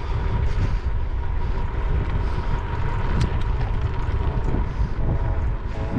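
Wind rushing over the microphone of a moving bicycle, mixed with the steady rumble of tyres rolling on a gravel road, and a faint steady whine underneath.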